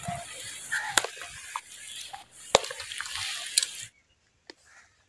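A spoon stirring and tossing a wet chickpea salad of chopped vegetables in a bowl: moist squelching with a few sharp clicks of the spoon against the bowl, cutting off suddenly about four seconds in.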